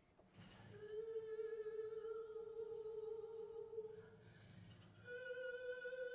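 A woman's voice singing two long held notes, the second a little higher, played back from a recorded video over the hall's speakers.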